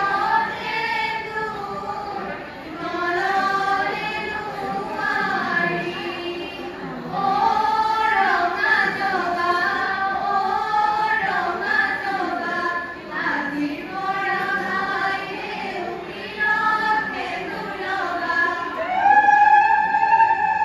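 A group of women singing biya naam, Assamese traditional wedding songs, together with no instruments. The melody moves in short rising and falling phrases, and near the end the voices hold one long, loud note.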